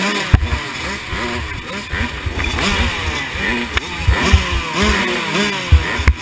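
Several two-stroke dirt bikes, a KTM 85 SX among them, revving up and down over and over while sitting at idle. There are a few sharp knocks in between.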